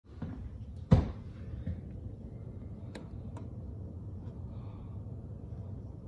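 A door being opened: a sharp knock about a second in, then two light clicks, over a low steady rumble.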